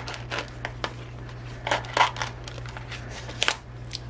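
Plastic blister packaging and its cardboard backing card being handled and pulled apart: irregular crinkles and clicks, loudest about two seconds in and again about three and a half seconds in.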